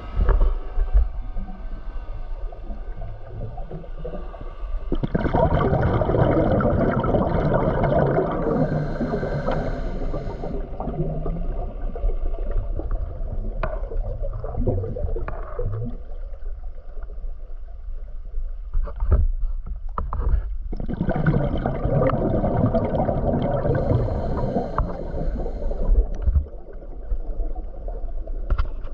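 Muffled underwater water noise heard through a submerged camera. It swells into a dense rush twice, for several seconds each time, with a few scattered knocks in between.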